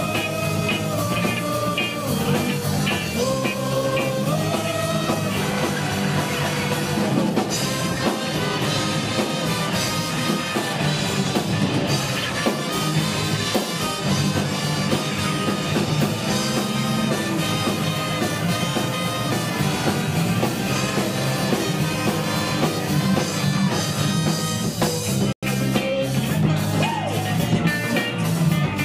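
Ska band playing live with drums, guitar and bass, with held melody notes at the start. A split-second dropout in the recording comes near the end.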